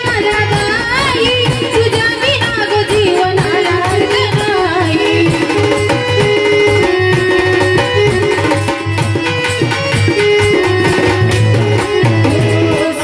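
Marathi devotional song music: tabla keeping a steady beat under held, wavering melodic lines.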